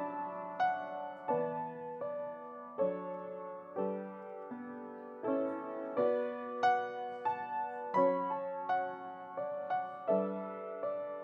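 Piano music played slowly, sustained chords and single notes that ring and fade.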